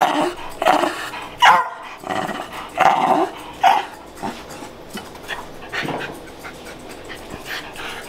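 West Highland White Terrier giving short barks and yips, about five loud ones in the first four seconds, then quieter, sparser ones.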